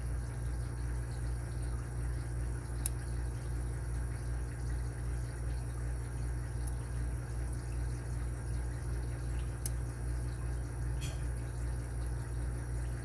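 A steady low mechanical hum, with a few separate sharp metal clicks as a Lishi 2-in-1 pick's arm is worked against the pins of an Abus 83AL50 padlock.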